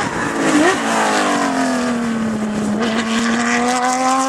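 Rally car engine running hard at high revs. Its pitch climbs briefly, drops sharply under a second in, then holds nearly steady and rises slowly.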